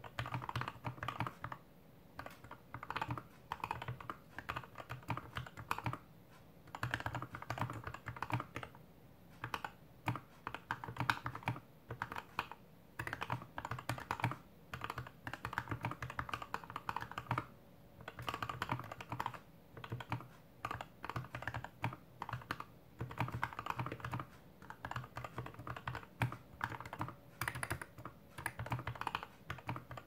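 Slow typing on a GK61X 60% mechanical keyboard with lubed and filmed Gateron Red Ink V2 linear switches, a stainless steel plate, a plastic case and DSA keycaps, set on a bare desk with no mat. Keystrokes come in runs of a few seconds broken by short pauses.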